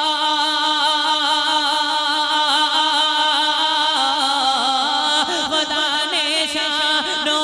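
A naat sung as a long, drawn-out held note with a slight waver, breaking into ornamented turns of pitch about four to six seconds in.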